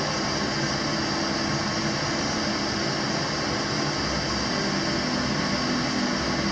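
Gas burner hissing steadily as it heats a glass beaker of gold chloride solution.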